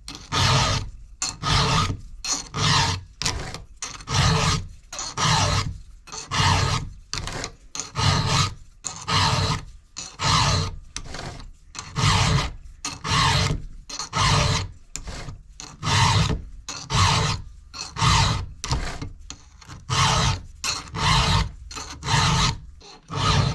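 Round file rasping across the cutters of a Husqvarna 372XP chainsaw chain. It goes in steady, even strokes, a little over one a second, as the teeth are sharpened by hand.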